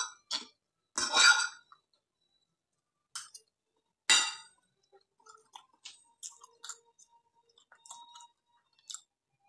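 Scattered small clicks of a fork on a plate, with chewing, and two louder short rushes of noise about one and four seconds in.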